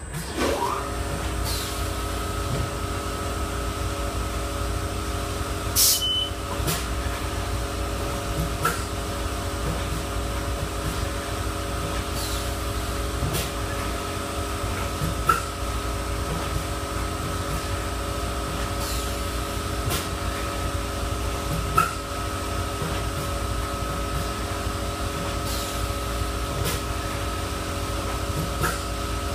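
A small electric motor starts up just after the beginning and runs with a steady hum, with occasional sharp clicks every few seconds.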